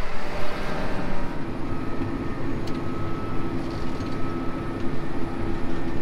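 Farm tractor engine running steadily under load, a low continuous rumble with a thin steady whine for a few seconds in the middle.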